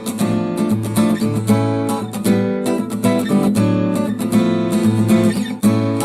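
A Samsung Galaxy phone ringtone played as an acoustic guitar tune: quickly plucked notes with strummed chords, several note attacks a second.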